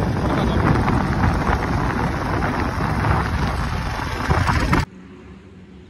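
Wind rushing and buffeting over the microphone of a Royal Enfield Bullet motorcycle at road speed, with the single-cylinder engine running underneath. The noise cuts off abruptly about five seconds in, leaving a quiet low hum.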